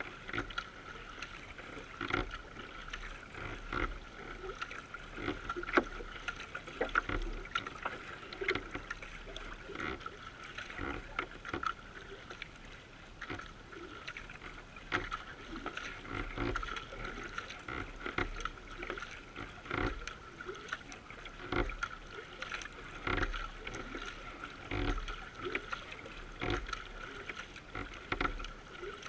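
Kayak under way with paddle strokes splashing about once a second and water rushing and slapping along the bow, over a steady high-pitched tone.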